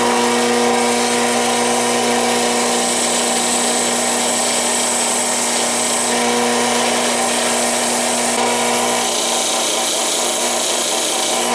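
Power tool with a wire brush wheel running steadily: a motor hum with a hiss of wire scrubbing rust off a steel bayonet blade. It cuts off at the end.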